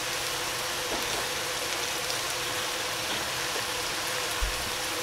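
Shredded lettuce cooking in a stainless steel pot on the stove, giving a steady sizzling hiss.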